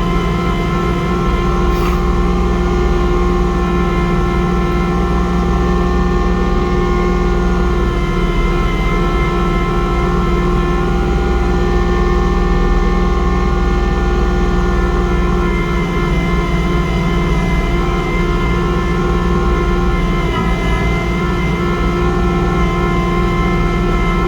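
Kubota LX2610 compact diesel tractor running steadily under load while driving a PTO snowblower, with a steady whine from the blower over the engine's rumble, as it works through heavy wet snow.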